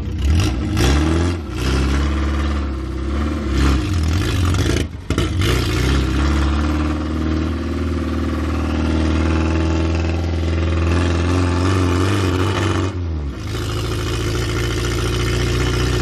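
1969 Ford Capri Mk1 engine heard from inside the cabin while driving, its pitch rising and falling with the revs, with a brief sudden drop about five seconds in and a change in its note near the end. The engine coughs and splutters and bogs down when revved, which the owners put down to fuel starvation from too small an idle jet.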